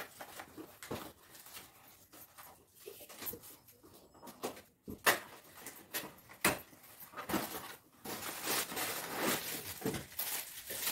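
Cardboard box being opened by hand and a water bottle pulled out in its plastic wrapping: scattered rustles and crackles, turning into denser, louder plastic crinkling in the last few seconds.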